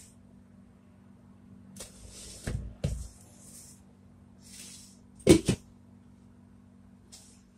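Kitchen clatter: a few short rustles and two dull thuds, then a sharp double knock about five seconds in that is the loudest sound, over a steady low hum.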